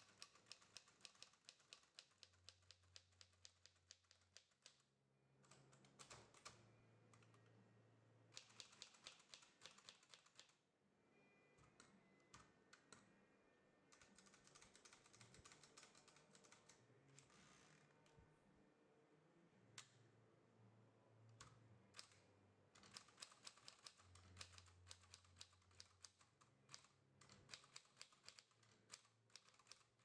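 Typing on a Smith-Corona manual typewriter: runs of quick, sharp key strikes several times a second, broken by short pauses.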